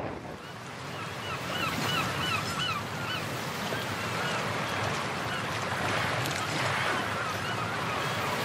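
Motorcycle riding noise: wind buffeting the phone's microphone over the running engine. A run of short, quick, repeated chirps comes through about one to three seconds in, with a few more a little later.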